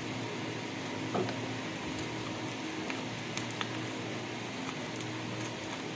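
Aluminium foil being picked at and peeled open by hand, heard as a few faint crinkles and clicks over a steady fan-like hum.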